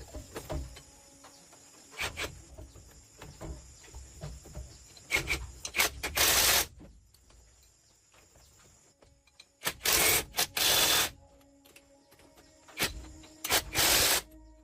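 Three short bursts of hissing air, each about a second long, with light knocks and rubbing of parts being handled in between.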